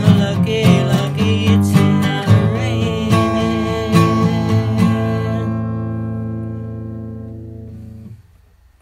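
Acoustic guitar strumming the closing bars of a song. About five seconds in it ends on a final chord that rings on and slowly fades out.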